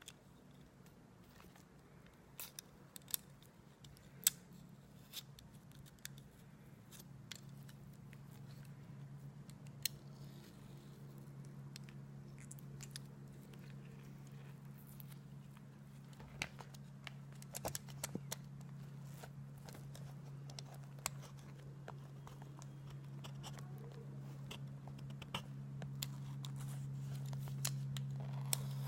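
Sticky mouth clicks and smacks from someone eating aloe vera gel: scattered, irregular sharp clicks. Under them runs a low steady hum that grows louder toward the end.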